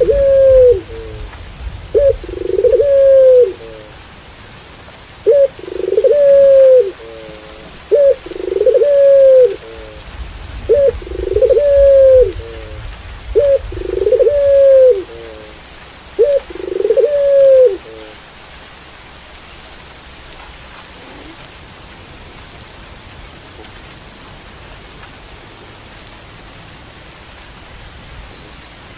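Barbary dove (puter pelung, a long-cooing variety) cooing repeatedly, about seven calls, each a short note followed by a long arching coo, over steady rain. The cooing stops about 18 seconds in and only the rain continues.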